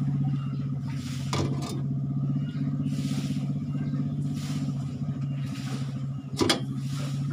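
A large stainless pot of vegetables boiling hard on a gas stove, giving a steady low rumbling drone. A utensil clinks against the pot about one and a half seconds in, and again more sharply near the end.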